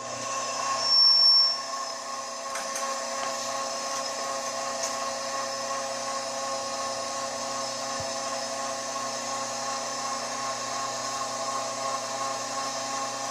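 Electric roller-shutter motor running steadily: a low mains hum with a higher whine over it, louder for a moment about a second in. The technician says the motor has taken slight damage.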